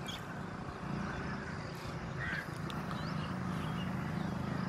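Steady low rumble of vehicle engines and road traffic, with a few short bird calls over it.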